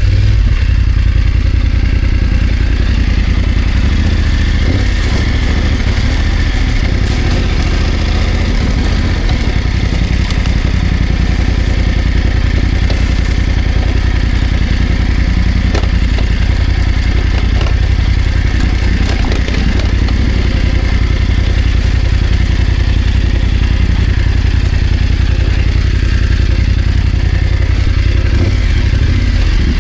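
BMW F900GS parallel-twin engine running at a steady, low pace on an off-road trail, with occasional knocks and rattles from the bike over rough ground.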